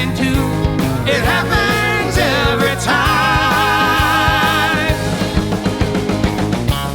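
Rock music with a steady drum beat and a melody line held with vibrato.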